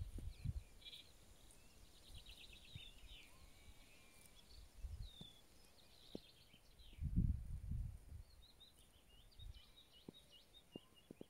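Small songbirds chirping and trilling, several calls overlapping. A low rumble on the microphone comes about seven seconds in.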